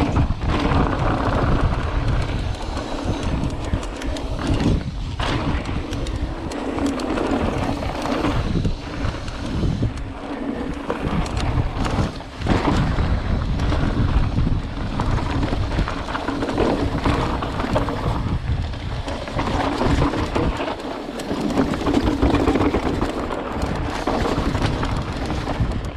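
Wind buffeting the microphone over the rolling noise of a Giant Reign SX 29 mountain bike's knobby tyres on rocky dirt, with frequent knocks and rattles as the bike rides over rocks.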